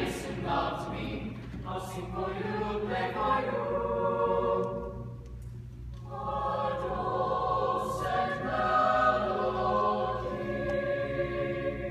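Mixed high-school choir singing in many-voiced harmony, with sustained chords. The singing thins out briefly a little past the middle, then the full choir comes back in before trailing off near the end.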